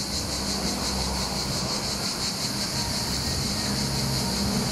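Crickets chirping in a dense, never-ending high-pitched chorus with a fast even pulse, over a low steady motor hum.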